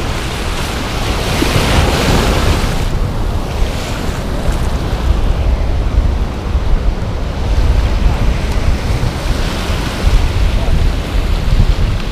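Ocean surf breaking and washing up a sandy beach, with a swell of louder wash about two seconds in and again near the end. Wind buffets the microphone with a steady low rumble.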